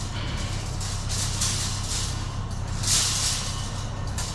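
Bulky scrap metal being handled and shifted: bursts of scraping and rustling about a second and a half in and again around three seconds, over a steady low hum.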